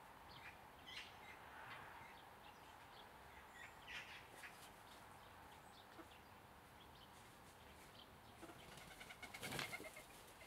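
Faint, scattered short chirps and peeps from young chickens at roost, over near silence. Near the end a brief flutter of feathers is the loudest sound.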